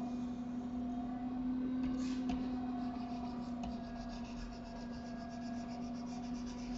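Steady low electrical hum from the recording setup, with a few faint computer mouse clicks and the soft rubbing of the mouse being slid across the desk.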